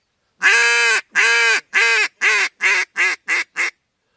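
Duck call blown in a pleading hail call: a run of about nine quacks, the first two long and drawn out, the rest shorter and quicker.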